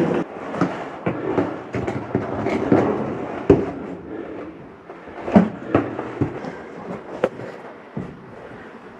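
Motorcycle boots and riding gear scuffing, scraping and knocking against rock while climbing through a narrow rock crevice: irregular sharp knocks over a low shuffling noise, the strongest about three and a half and five and a half seconds in.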